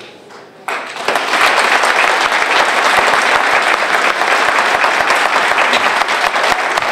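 An audience applauding, the clapping breaking out about a second in and then holding steady.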